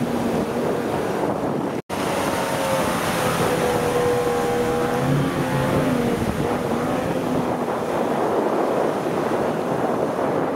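Outboard motor of a D-class inshore lifeboat, a 50 hp Mariner, running at speed, its pitch gliding slightly, over the rush of wash and wind on the microphone. The sound drops out for an instant about two seconds in, and the engine tone fades near the end, leaving wind and water.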